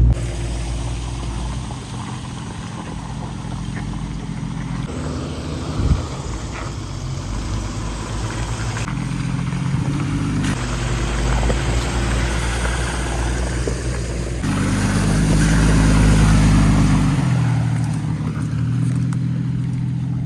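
A vehicle driving along with its engine running at a steady pace over road noise, the engine note shifting abruptly a few times as stretches are spliced together; a short thump about six seconds in.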